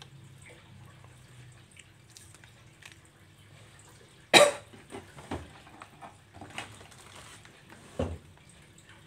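A sharp knock about four seconds in, followed by a few lighter taps and a duller knock near the end, over a low steady hum.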